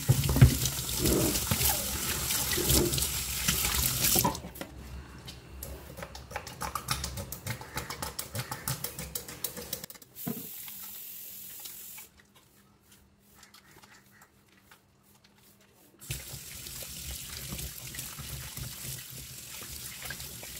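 Kitchen tap water running into a sink while cut fish is washed by hand, with irregular splashing and handling noises. The water is loudest at the start, stops about ten seconds in, and starts again after a short quiet gap.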